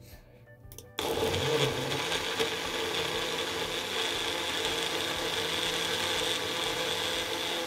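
Magic Bullet personal blender: a few light clicks as the cup is pressed onto the base, then about a second in the motor starts and runs steadily, blending a thick smoothie, before cutting off suddenly at the end.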